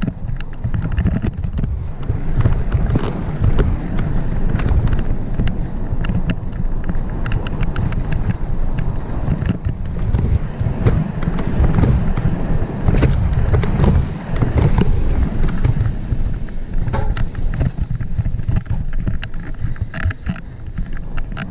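Full-suspension mountain bike descending a rough dirt trail at race speed: heavy wind buffeting on the helmet-mounted microphone with a constant stream of clicks and rattles from the bike and its tyres over the bumpy ground.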